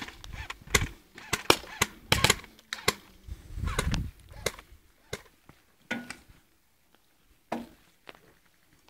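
Airsoft guns firing scattered single shots, sharp snaps at uneven intervals, with a couple of duller knocks of movement about two and four seconds in; the shots die away over the last couple of seconds.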